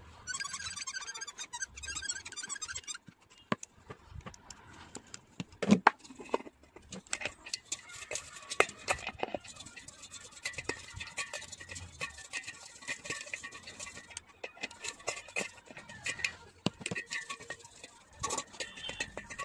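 Pliers clicking and scraping against the plastic centre hub of a stainless-steel spin mop basket, with scattered sharp knocks of metal on metal. In the first few seconds there is a rapid high rattle.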